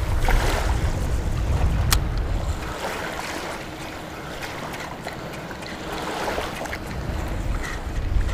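Wind buffeting the microphone in gusts, strongest in the first two seconds and again near the end, over the wash of small waves on the shore. A single sharp click about two seconds in.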